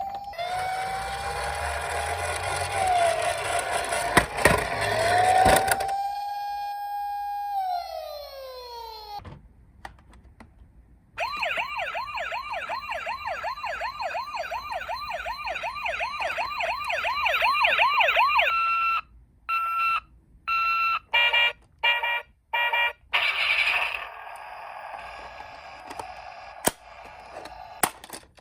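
Electronic siren sounds of toy emergency-vehicle minicars. First a wailing siren over a rattling rolling noise winds down with a falling pitch. After a short pause comes a fast yelp siren, then short high-low two-tone siren sounds broken by gaps, ending in rattling and clicks.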